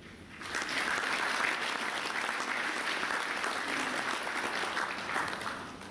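Audience applauding, many hands clapping together; it starts about half a second in and holds steady, easing slightly near the end.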